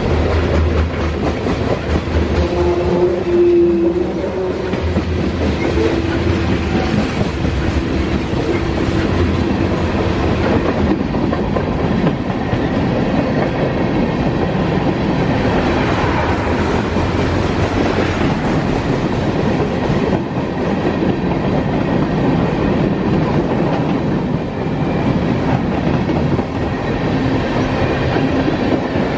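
Freight train rolling past, tank cars and covered hoppers with steel wheels clicking over the rail joints under a steady rumble.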